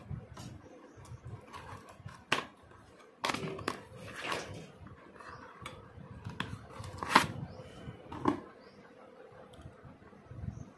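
Cardboard parts box being opened by hand and a stack of motorcycle clutch plates drawn out: scattered rustling of cardboard with a few sharp clicks and taps, the loudest about seven seconds in.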